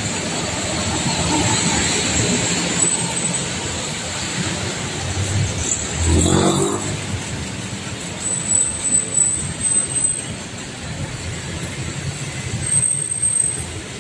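Busy city street traffic: cars and motorcycles running past, with a louder pass about six seconds in.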